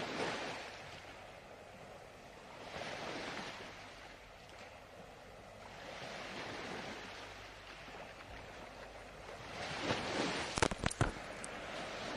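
Soft ocean surf washing in and out, swelling and fading about every three to four seconds. A few short clicks come near the end.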